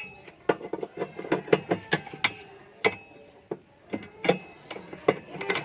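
Irregular metallic clicks and knocks, several a second, of a size 10 spanner working a nut loose on the steel cable at a washing machine's gearbox.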